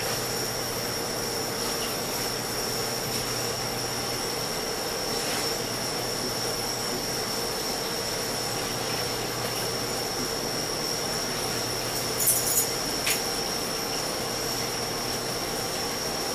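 Steady hiss with a constant high-pitched whine and a low hum, and a few short clicks about twelve and thirteen seconds in.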